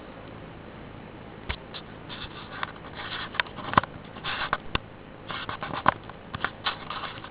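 Irregular light scratching and rustling, broken by sharp clicks, starting about a second and a half in.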